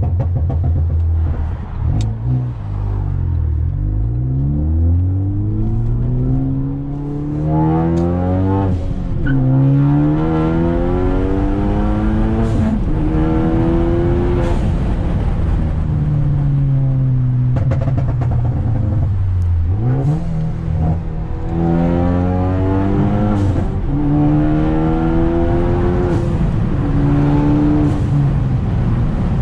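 Ford Focus ST with a catless downpipe exhaust, accelerating hard through the gears. The engine note climbs, drops at each shift and climbs again several times, and falls away once as the car slows. Sharp exhaust pops and crackles come between the pulls, from a tune set up to make them.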